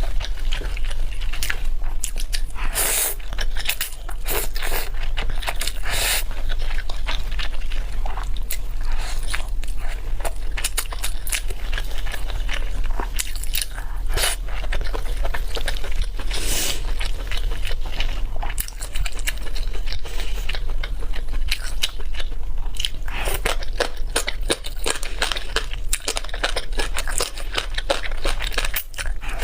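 Close-miked eating: a person chewing and biting into food, a dense, steady run of crisp crunching clicks.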